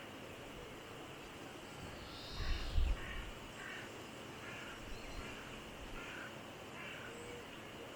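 Mallard ducks feeding, giving a series of short soft calls, about one every half second to a second. A brief low rumble on the microphone about two and a half seconds in is the loudest moment.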